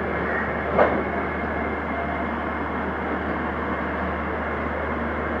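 Passenger train running at a station: a steady rumble from the coaches, with one sharp clank about a second in.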